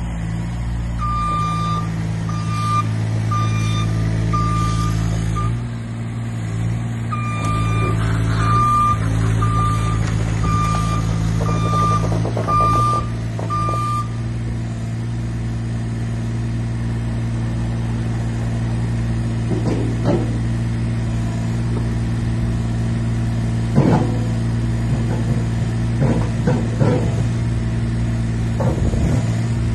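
LiuGong 9027Z mini excavator running steadily as it tracks and slews, its travel alarm beeping about one and a half times a second through the first half. After the beeping stops, the engine keeps running with a few short knocks from the moving machine.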